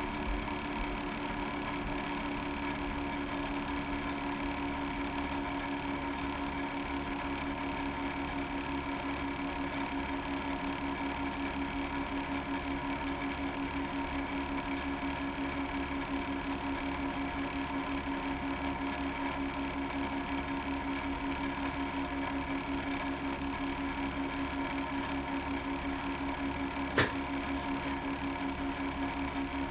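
Steady electrical machine hum from the repair bench, with one sharp click near the end.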